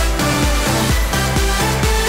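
Electronic dance-pop music with a steady beat and a bass line, in an instrumental passage without singing.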